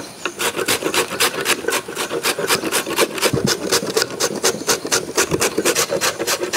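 Carrot being grated on a hand-held metal grater: a rapid, even run of rasping strokes, about five a second.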